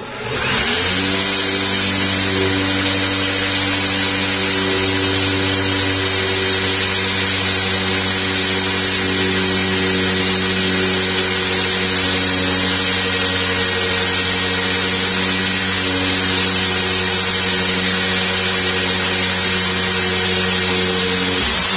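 Corded electric drill running steadily at full speed, a Miranda 9.5 mm HSS bit boring into a wooden door panel; the motor spins up at the start and holds one even pitch throughout. The bit, meant mostly for metal, cuts the wood slowly and has become very hot, so the hole takes a long time.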